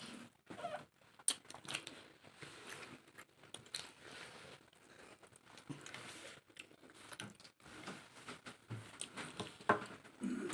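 A person chewing a mouthful of chicken chilli and rice close to the microphone: soft, irregular chewing and crunching, with a few sharp clicks scattered through.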